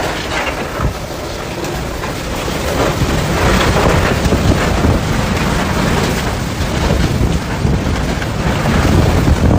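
Heavy storm rain with wind, a dense steady wash of noise with a low rumble that swells louder about three seconds in.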